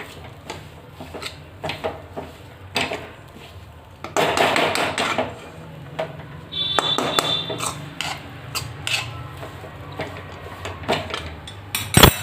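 A spoon stirring a thick gram-flour and pea filling in a pan, with repeated scraping and clinking against the metal and one sharp knock near the end.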